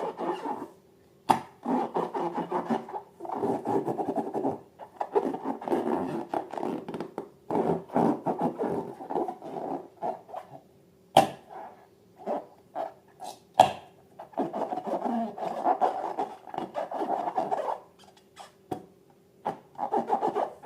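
Slime and balloons being worked by hand, giving stretches of squishy rubbing noise that stop and start every second or two. Three sharp clicks or snaps stand out above the rubbing.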